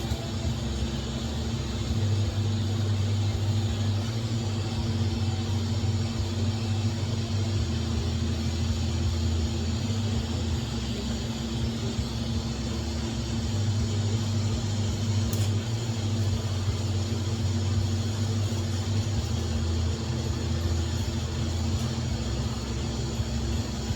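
Arc welding at about 55 amps: a steady electrical buzz from the arc and welder, with a constant hiss, running without a break.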